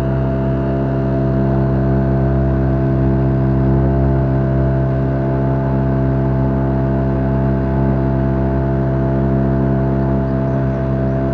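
Boat engine running steadily at a constant speed, an even pitched hum with a low rumble underneath.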